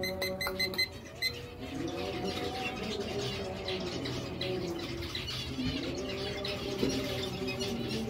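Birds in an aviary calling: repeated low, arching calls with dense, quick high twittering over them.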